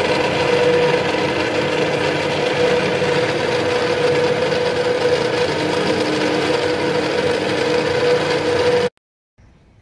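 Bench drill press running steadily with a thin bit boring holes into a teak stock, its motor holding one steady hum. The sound cuts off abruptly near the end.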